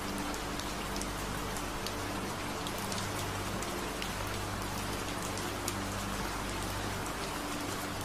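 Steady rain with scattered drop ticks, laid over low steady drone tones that fade in and out: a rain-sound delta-wave sleep track.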